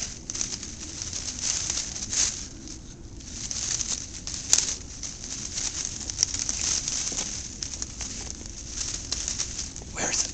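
Dry leaves and twigs rustling and crackling as Jack Russell terriers dig and push through a brush pile, with one sharp snap about four and a half seconds in.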